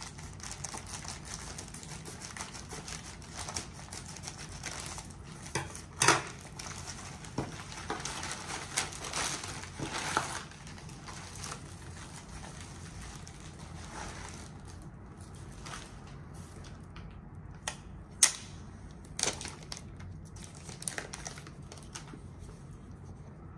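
Plastic poly mailer being cut open with scissors, then a padded bubble mailer pulled out and opened: crinkling and rustling plastic with scattered clicks. Two sharp knocks stand out as the loudest sounds, about a quarter of the way in and again about three-quarters of the way through.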